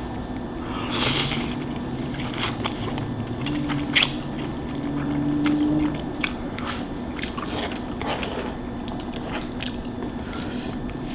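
Close-miked eating sounds: chewing and biting with wet, squishy mouth noises and short sharp clicks.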